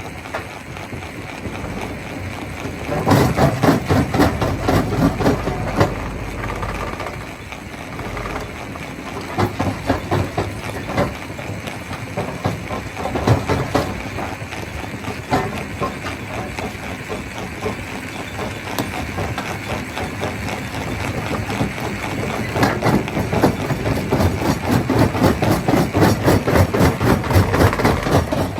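Stone crusher machine running, with a steady engine-like drone under a dense, rapid clatter and knocking of rock being crushed. It swells louder for a few seconds about three seconds in and again for the last several seconds.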